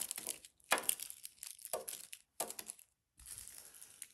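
Individually wrapped candies dropped one after another onto a cloth placemat, their plastic wrappers crinkling: four short crinkles in under three seconds, then a softer rustle near the end.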